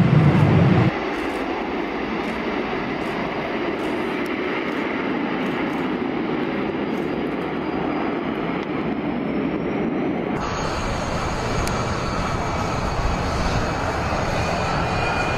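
Jet noise from a Y-20 heavy transport's four turbofan engines in flight, a steady rushing sound with a deeper rumble that drops away about a second in. About two-thirds through it changes abruptly to a brighter sound, and a rising whine grows as the aircraft flies toward the microphone.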